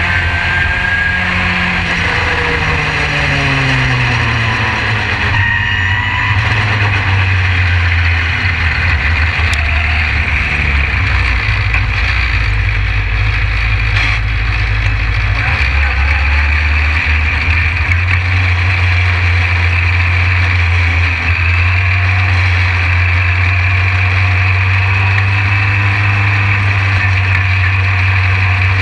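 SpeedSTR race car's engine heard from inside its open cockpit, revs falling in the first few seconds as the car slows, then running steadily at low revs.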